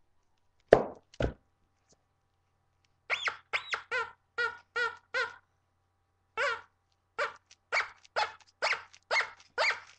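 Squeaky pig dog toy being squeezed over and over, a run of short, pitched squeaks about two to three a second starting about three seconds in. Two loud knocks come before it, in the first second and a half.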